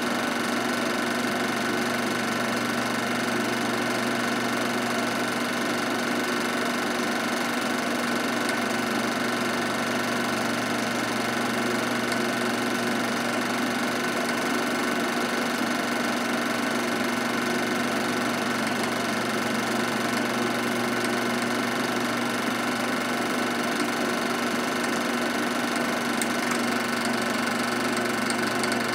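Movie projector running steadily: an even mechanical whirr and hum from its motor and film mechanism that does not change.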